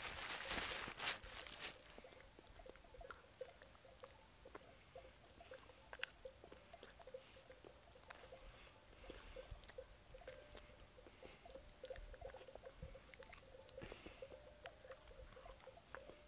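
A loud rustling burst in the first two seconds, then faint scattered small clicks and rustles of a person eating by hand: tearing at food and chewing.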